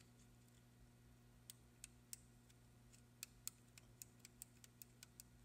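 Faint clicks of the thumbwheel time-setting dials on a Square D multifunction timing relay being rolled digit by digit: a few spaced clicks at first, then a quicker run of about a dozen in the second half.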